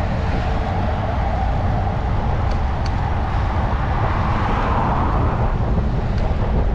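Road traffic noise over a steady low rumble, with a car passing that swells and fades about four to five seconds in.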